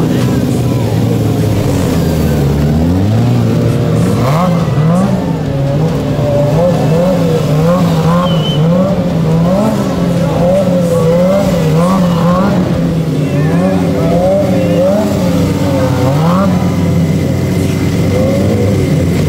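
Motorcycle engine revving up and down over and over, its pitch rising and falling a little more than once a second. This is the throttle work of a rider balancing a wheelie.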